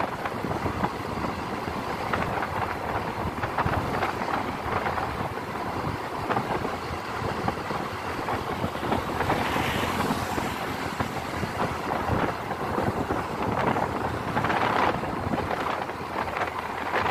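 Wind rushing over the microphone of a moving motorbike, mixed with the bike's riding noise on the road. The wind swells a couple of times.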